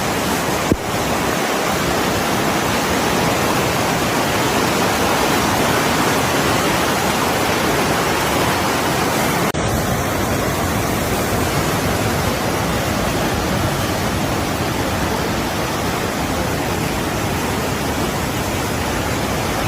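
Waterfall running after rain: a steady, loud rush of falling water. A brief click comes under a second in, and there is a short break about halfway through where the recording cuts.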